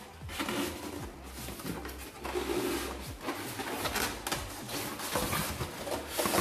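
Polystyrene foam packing squeaking and creaking as it is gripped, twisted and pulled off a car subwoofer, in irregular rubbing squeals that come thickest in the middle of the stretch and again near the end.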